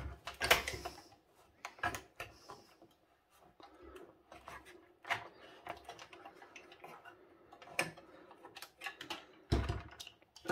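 A computer motherboard knocking and clicking against its sheet-metal case as a hand pulls and wiggles it, in scattered irregular taps and rattles, the loudest about half a second in and near the end. The board is stuck on its mounting pins and does not come free.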